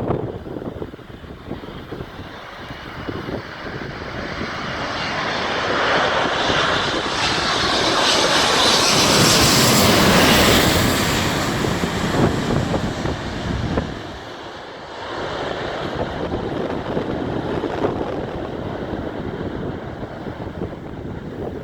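KLM Boeing 787 Dreamliner's GEnx jet engines on landing approach, passing close by: a rushing jet noise swells to a peak about ten seconds in, then fades to a lower, steady rumble.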